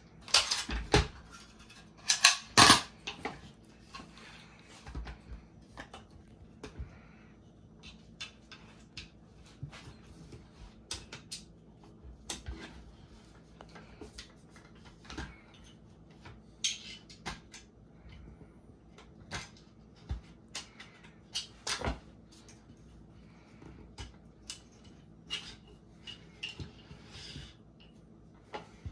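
AR-15 rifle being field stripped by hand: a string of sharp metal clicks and clacks as parts are worked apart and set down on the table. The loudest clacks come in the first few seconds and once more about two-thirds of the way through.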